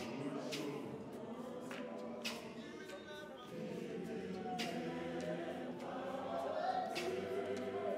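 Men's choir singing a Zionist church hymn a cappella, several voices in harmony, with a few sharp percussive hits at uneven intervals.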